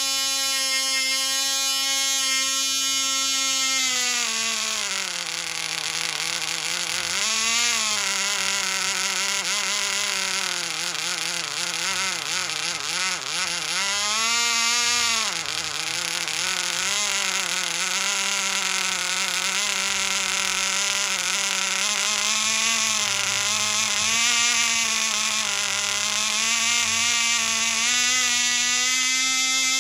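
0.1cc Nano model diesel engine running at high speed with a high buzzing whine. About four seconds in, its pitch drops and wavers, surging up twice, then slowly climbs back to the starting pitch near the end, as the compression screw on top of the cylinder is turned by hand.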